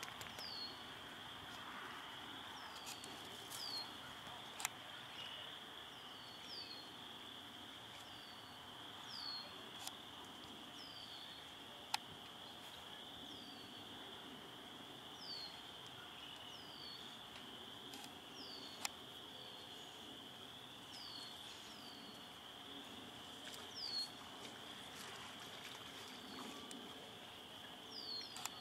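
Quiet outdoor ambience: a steady high-pitched chorus of small calls, with short falling chirps repeating every second or two, often in pairs. Three sharp clicks stand out, about 5, 12 and 19 seconds in.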